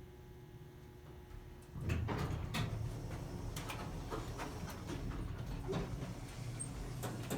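Elevator hum, then from about two seconds in a louder low rumble with clunks and rattles, typical of elevator doors sliding.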